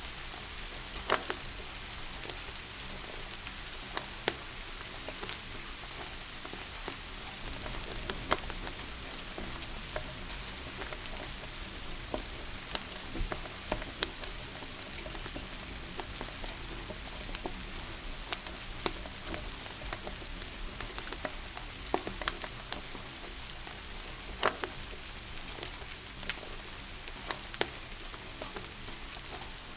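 Steady rain hissing, mixed with a wood fire crackling in a fireplace: sharp, irregular pops every second or few over the even patter.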